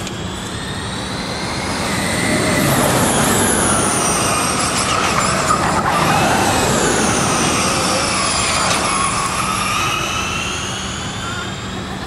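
First-season Formula E race cars (Spark-Renault SRT_01E) passing at speed: a high electric motor and gearbox whine that swells and glides down in pitch as each car goes by, over tyre noise, loudest through the middle.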